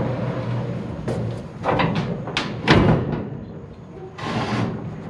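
A heavy air compressor on a plastic sheet being dragged up a trailer ramp: a run of irregular scrapes and knocks as the plastic slides and bumps over the ramp, the loudest about two and a half seconds in.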